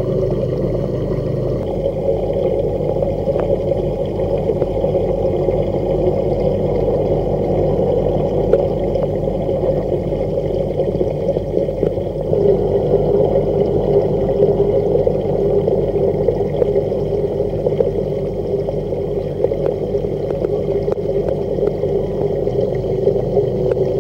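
Marine aquarium equipment running steadily: pump hum under a continuous wash of water gurgling and bubbling.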